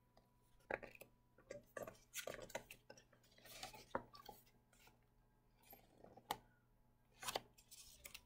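Hardcover picture book being handled and its page turned: faint paper rustles mixed with light taps and clicks, in two clusters, one in the middle and one near the end.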